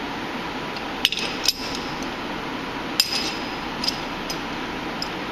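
Sharp metal-on-metal clinks, about six, with brief ringing, as a metal workpiece is set into the jaws of a lathe's three-jaw scroll chuck, with the spindle stopped.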